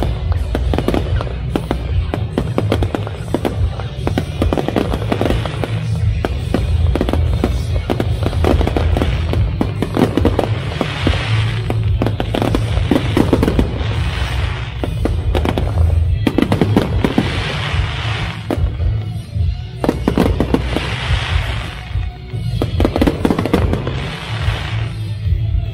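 Fireworks display: a dense run of bangs and crackles, with several hissing bursts of about a second each, over loud accompanying music.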